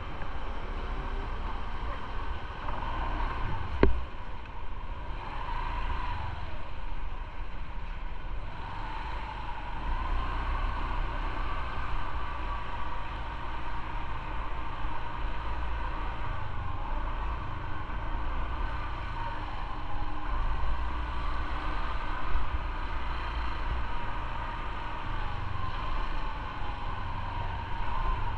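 Motorcycle engine running at low street speed, its pitch rising and falling with the throttle over a steady low rumble. A single sharp click about four seconds in.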